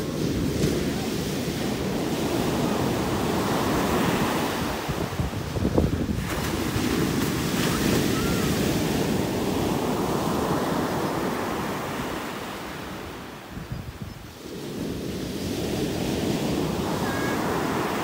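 Small ocean surf breaking and washing up the beach, with wind buffeting the microphone. The wash swells and fades in long surges, dropping away briefly about three quarters of the way through before the next wave builds.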